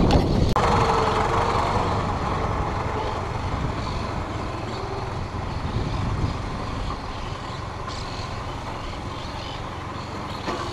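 A motor vehicle's engine running steadily, slowly getting quieter.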